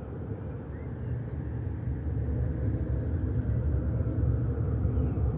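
A low, steady rumble that slowly grows louder.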